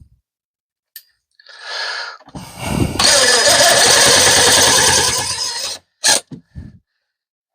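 Power drill driving a screw to mount a fitting: a brief spin, then a longer run of about three seconds that stops abruptly, followed by a few light clicks.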